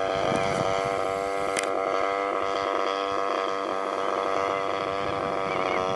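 DLE 20RA single-cylinder two-stroke gasoline engine of a 78-inch radio-controlled Tiger Moth biplane running steadily at cruise as the model flies past.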